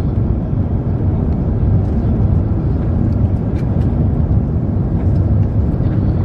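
Steady low cabin noise inside an Airbus A350-900 on final approach, from its Rolls-Royce Trent XWB engines and the airflow over the extended flaps, with a few faint ticks.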